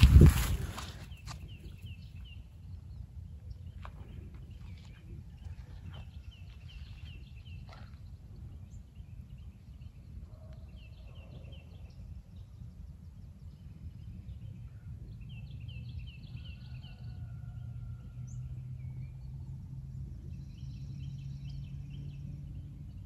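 A songbird singing, repeating a short phrase of quick high notes six or so times with pauses between, over a low steady outdoor rumble. A brief loud noise opens it.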